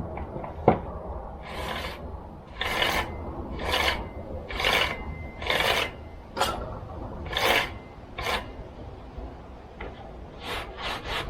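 Aerosol can of lubricant sprayed in short hissing bursts, about ten of them, a quicker run of short ones near the end, with one sharp knock under a second in.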